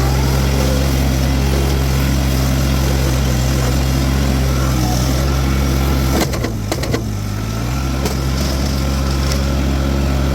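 Toro TX1000 mini skid steer's diesel engine running steadily at high throttle while powering a Virnig V20 brush mower. About six seconds in, a few sharp cracks come through and the engine pulls down slightly under load, then recovers.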